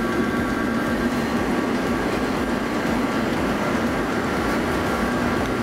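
Steady mechanical drone from kitchen equipment, a constant hum and hiss with a faint high-pitched whine.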